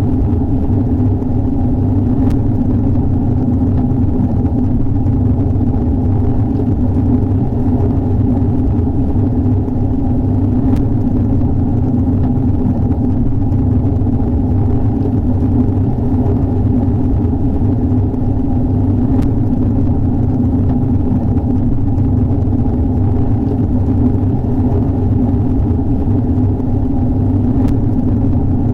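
Heavy rain heard as a steady, muffled low rumble, without crisp drop patter.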